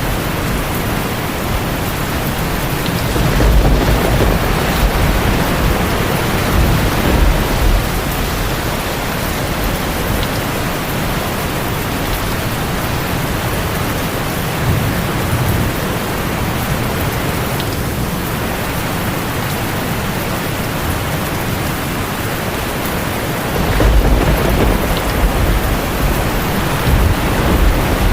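Steady heavy rain, with low rolling thunder swelling twice: a few seconds in and again near the end.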